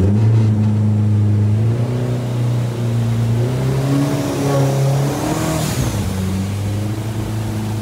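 Turbocharged Honda K-series engine of a mini jet boat and a turbocharged Honda AquaTrax jet ski both at full throttle, accelerating hard side by side from a rolling start. A steady engine drone is joined by a second engine note that climbs about halfway through, with a brief hiss of spray or turbo air shortly after.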